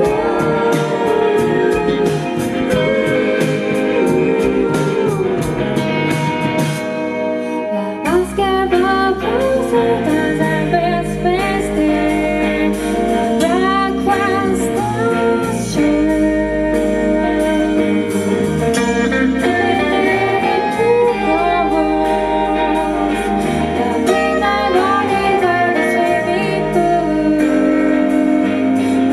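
A live band plays: two electric guitars, bass and a drum kit. A woman's lead vocal comes in about eight seconds in, as the drums ease off and the low end fills out.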